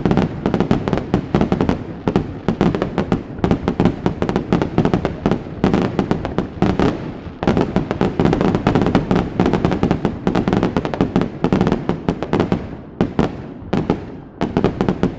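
Aerial fireworks going off in a continuous barrage of rapid, overlapping bangs and crackles. The barrage eases briefly about halfway through and again near the end.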